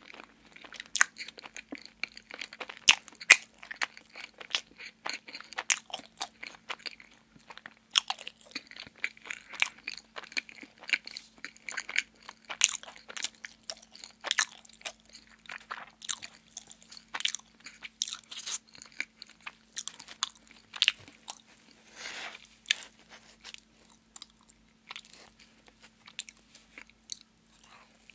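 Close-miked chewing of soft donut: irregular wet mouth sounds and sharp clicks, continuing without pause, over a faint steady hum.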